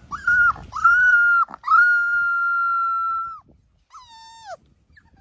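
A dog howling: a few short rising calls, then one long steady howl, and about four seconds in a shorter howl that falls in pitch.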